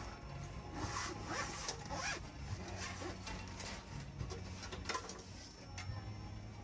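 A zipper being pulled in a series of quick strokes.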